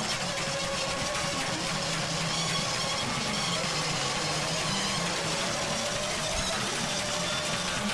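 Sustained droning electric guitar and bass tones from a live rock band, held and slowly shifting with no clear drumbeat, over the steady hiss of a lo-fi cassette recording.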